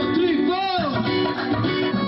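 Live band playing upbeat Punjabi bhangra music, with plucked string lines and a swooping rise-and-fall in pitch from about half a second to a second in.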